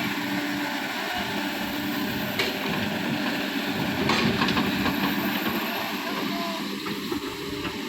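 Large excavator's engine running steadily, with two sharp metal knocks, about two and a half and four seconds in.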